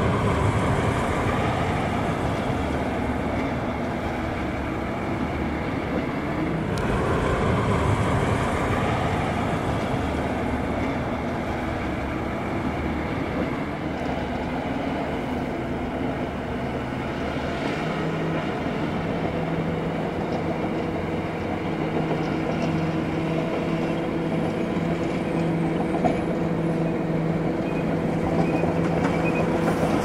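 Crawler bulldozer running as it pushes through a snow pile, its diesel engine working steadily. About halfway through, the engine settles into a steady, even hum.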